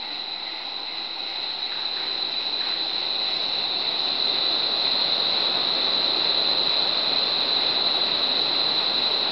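Large ducted wind-tunnel fan spinning up: a rush of air that grows steadily louder as the air speed rises, with a steady high whine over it.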